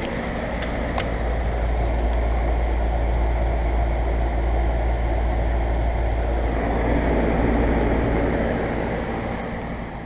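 Steady hum and air rush of a running outdoor central air-conditioner condensing unit, its compressor and fan going without change, with a single light click about a second in.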